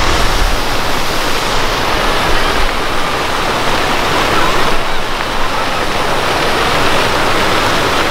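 Steady rushing and splashing of the large fountain jets at the National World War II Memorial, with faint voices mixed in.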